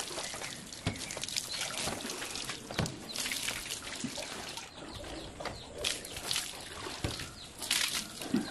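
Water poured from a mug over a person's head, splashing and trickling down, with several separate pours.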